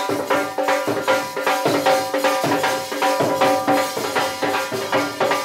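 Lively dance music driven by dhol drumming: a fast, steady drum beat under a melody.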